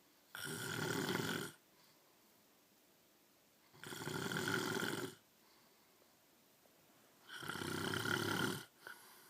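A man snoring in his sleep: three loud snores, each a little over a second long, coming about every three and a half seconds with quiet between.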